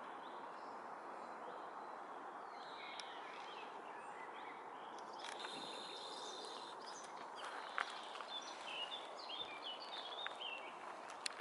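Small birds chirping and singing in short, scattered phrases over a steady outdoor background hum, with a few faint clicks a little past the middle.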